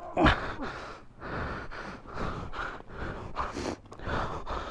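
A person panting hard in a run of heavy breaths, with one louder breath about a quarter second in: out of breath from the strain of pushing and lifting a stuck motorbike.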